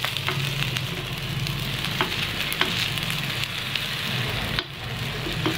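Oil sizzling steadily around paniyaram frying in a kuzhi paniyaram pan, over a low steady hum. A few short clicks of a metal spoon against the pan come as the paniyaram are turned over.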